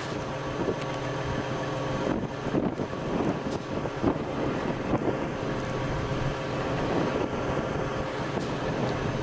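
Steady rush of wind noise with a low, even motor hum underneath.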